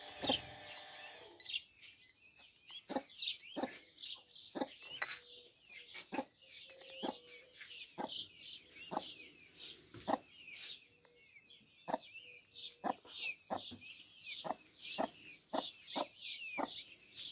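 Peafowl chicks peeping, a busy string of short high chirps that drop in pitch, over sharp clicks about once or twice a second.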